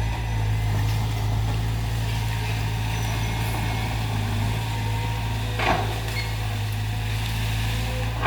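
Caterpillar excavator's diesel engine running steadily, with one sharp knock about two-thirds of the way through.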